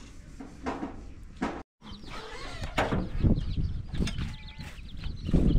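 A couple of light knocks, then a brief break, then rural outdoor sound: birds calling over a low rumble on the microphone.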